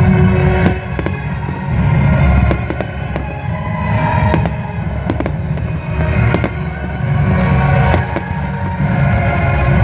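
Fireworks display: shells bursting in repeated sharp bangs at irregular intervals, with music playing underneath.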